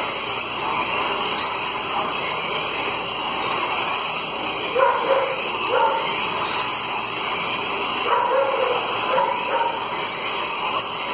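1/24-scale slot cars running on a multi-lane slot track: a steady whirring hiss of their small electric motors and wheels on the track, with a few short high yelps heard over it about halfway through and near the end.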